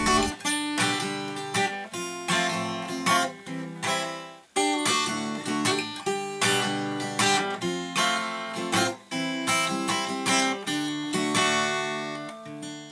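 Background music of acoustic guitar, picked and strummed, with brief breaks about four and nine seconds in.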